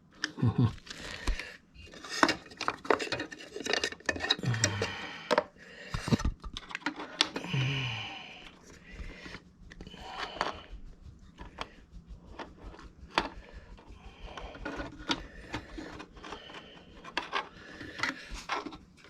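Small hard parts being handled and fitted together, with repeated clicks, knocks and rubbing: the fridge compressor's starter relay and overload being reassembled by hand.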